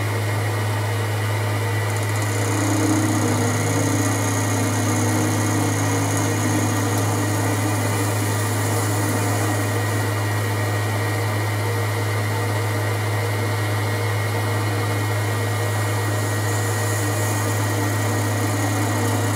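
Boxford metal lathe running with a steady motor hum while a carbide tool turns aluminium, the chuck spinning at a constant speed.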